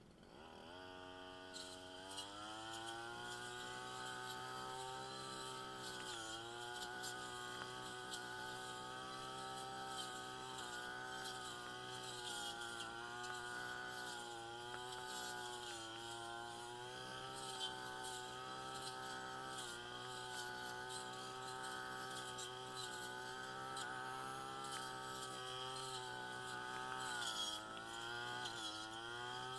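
Brush cutter's small petrol engine running, its speed climbing in the first couple of seconds and then holding with a wavering pitch, dropping briefly twice as the throttle eases off.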